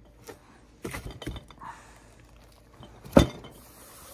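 A cast-iron Mini 850 A-series cylinder head is turned over by hand on the bench. A few light knocks and clinks come first, then one loud thunk about three seconds in as it is set down on its deck face.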